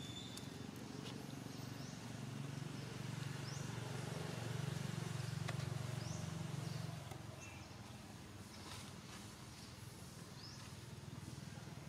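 Low engine hum of a passing motor vehicle, growing louder through the middle and dropping away about seven seconds in. Short, high, rising bird chirps come every second or two over it.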